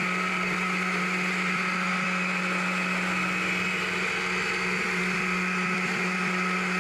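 Two-stroke carving chainsaw held at high revs while its bar cuts into a small log. It runs at one steady pitch with no change in speed.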